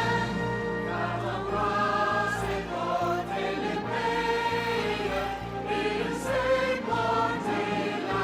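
A choir singing slow, sustained notes over a steady low accompaniment.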